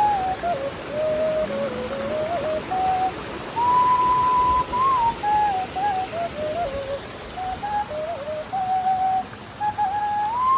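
Music: a slow single-line melody in a pure, whistle-like tone, its notes held and sliding between one another, over a steady rushing noise.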